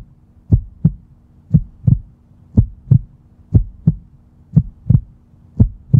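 Heartbeat sound effect: a steady lub-dub, about one double thump a second, six in all, over a faint low hum.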